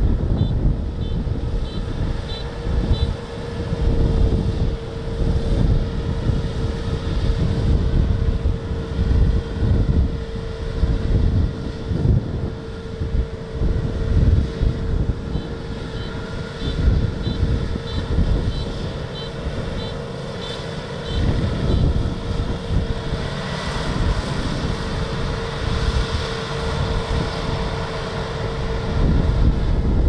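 Kubota DR6130SX combine harvester running as it cuts and threshes rice, giving a steady mid-pitched whine, with gusty wind buffeting the microphone.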